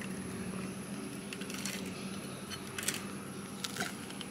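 A few faint clicks and a soft crunch over quiet background as a piece of pretzel bread is handled and bitten into.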